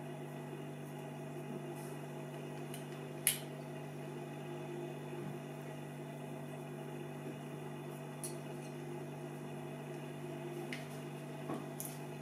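Light clicks and taps of a cassette-deck mechanism being handled: a sharper click about a third of the way in and a few small ones near the end. Under them runs a steady low electrical hum.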